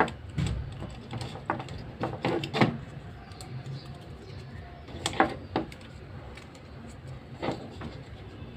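Scattered clicks and taps from hands working on an opened trimmer's plastic housing and motor, as paper is fitted as packing to close a gap in the motor's mounting; a faint low hum runs underneath.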